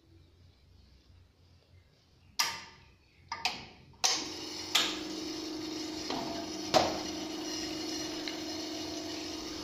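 Azkoyen commercial espresso machine starting up: a few sharp clicks, then from about four seconds in the pump hums steadily while water runs from the brass group head into the drip tray, with a couple more clicks over it.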